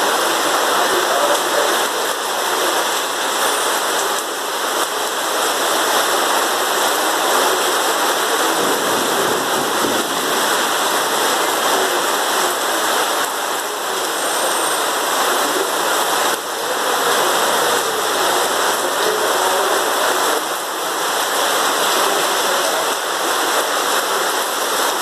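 Heavy rain falling: a steady, dense hiss of water.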